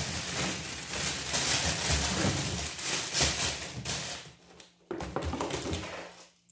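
Plastic bags of frozen food rustling and crinkling as they are handled and shifted in a chest freezer's wire basket, pausing briefly a little after four seconds in.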